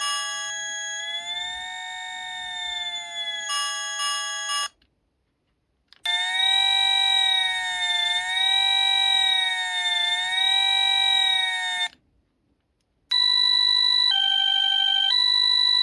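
Electronic police siren sound effects from a toy police car's replacement microcontroller sound board: a wavering wail siren, then after a short pause a second wail, and after another pause a two-tone hi-lo siren switching pitch about once a second.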